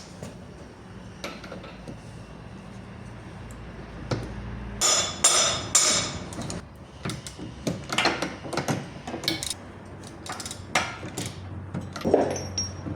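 Hammer striking metal in an irregular series of sharp, ringing blows starting about four seconds in, as in knocking an outer CV joint on or off a car's driveshaft.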